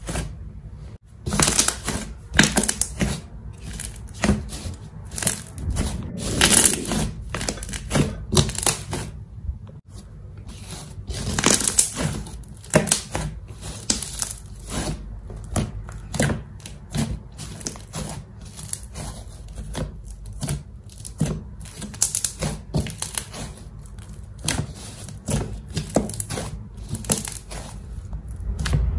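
Glitter slime being kneaded and pressed by hand, giving a run of irregular sticky clicks and pops, several a second.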